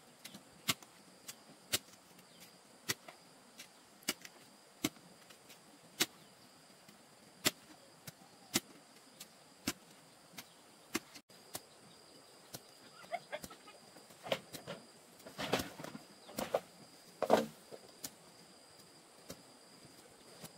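Sharp knocks of wood being struck, spaced about a second apart, then a cluster of louder, heavier blows in the last third.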